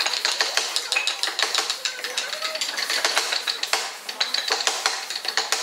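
Small hand carving chisel cutting and scraping fine detail into a hardwood relief, a quick irregular run of small clicks and scrapes as chips come away.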